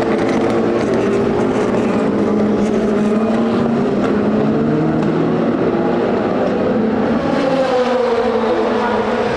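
Race car engines running hard on a circuit, several engine notes overlapping. About seven seconds in, one engine note drops in pitch as a car goes by.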